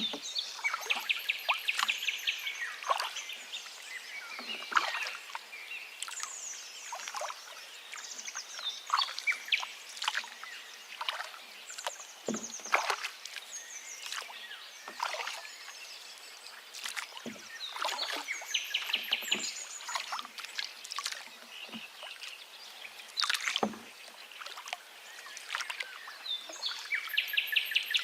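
A river running and babbling, with many small splashes and gurgles, while forest birds sing. A fast trill of repeated notes comes near the start, again about two-thirds through, and once more at the end, among thin high notes.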